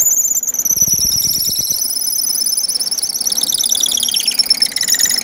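A 27/64 drill bit boring through a plastic-stabilized wood pen blank, squealing loudly at a high, wavering pitch. The lower part of the squeal sinks about three seconds in and climbs back near the end. The squeal is the bit rubbing against the plasticizer in the blank, which makes more friction and heat than plain wood.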